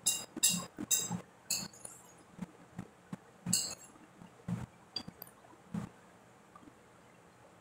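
Sharp clinks of tableware, hard things knocking against a plate or glass, several in the first two seconds and one more about three and a half seconds in, with softer knocks between.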